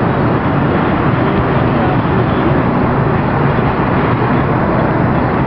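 Wind rushing over the microphone: a loud, even roar that stays steady throughout.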